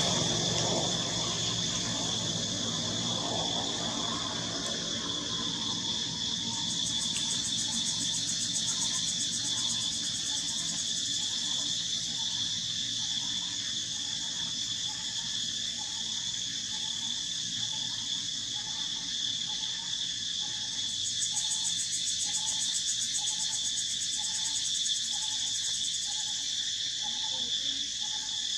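Steady high-pitched chorus of insects, a continuous shrill hum with a faster pulsing layer joining in now and then. A short lower note repeats regularly, a little more than once a second, through the second half, and a low rumble fades out over the first few seconds.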